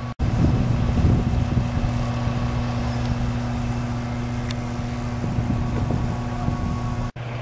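Steady electrical hum of high-voltage switchyard equipment, a low drone with a higher overtone, with gusts of wind buffeting the microphone.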